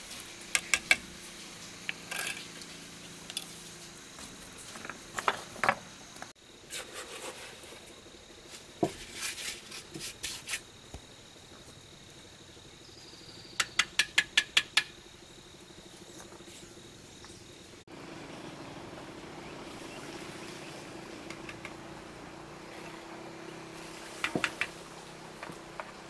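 Sharp knocks and taps from hand work, coming in small clusters, with a quick run of about five strikes in the middle. A faint steady hum lies under them.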